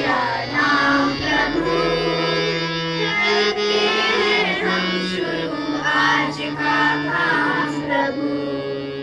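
Singing over a steady held drone accompaniment, the melody wavering above sustained low tones; the music fades out at the very end.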